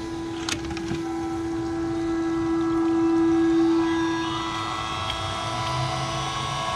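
A 12-volt 1100 GPH electric bilge pump running submerged in a bucket, pumping the water out, with a steady motor hum. The hum is loudest about three seconds in, then eases as its higher tones shift slightly upward about four seconds in.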